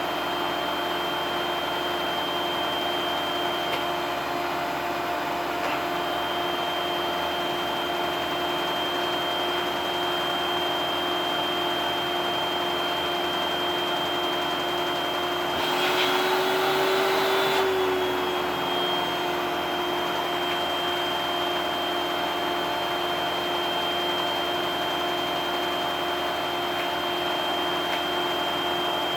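Vacuum cleaner motor running steadily with a high whine over a rush of air. About halfway through the air rush grows louder for about two seconds and the whine rises slightly before settling back.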